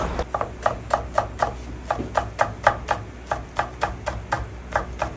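Chef's knife chopping green onion on a wooden cutting board: a steady run of quick, crisp chops, about four a second.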